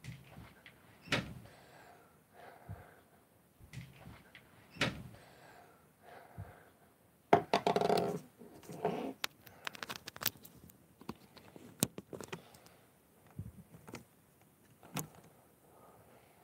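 Scattered knocks and bumps in a small room, with a louder run of clattering about seven to nine seconds in.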